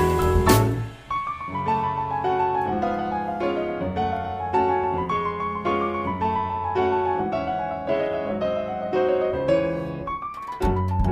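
Background music: a piano melody played alone. A fuller arrangement with low bass notes and percussion comes back in near the end.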